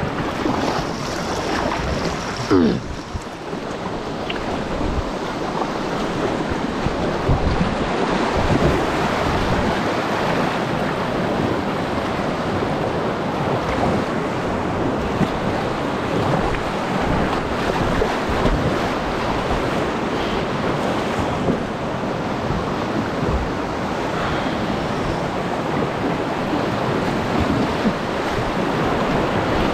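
Rushing whitewater of a river rapid, heard from a kayak running through it: a steady loud churning of water, with scattered low knocks and splashes buffeting the microphone.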